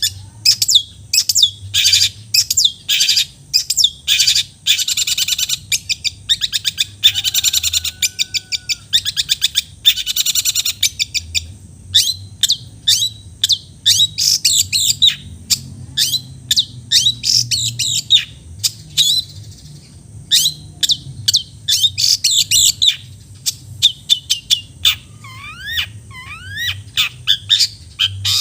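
Long-tailed shrike singing a fast, varied song of sharp chattering notes and rapid high calls, with a few rising whistled notes near the end.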